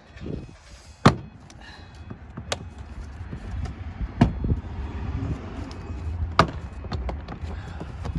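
Plastic retaining clips of a car door panel popping as the panel is pulled away from the door: a few sharp snaps spread over several seconds, over a low steady rumble.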